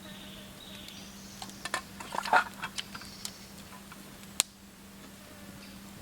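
A quick run of small knocks and clicks about two seconds in, then one sharp click a little after four seconds, over faint bird or insect chirps and a steady low hum.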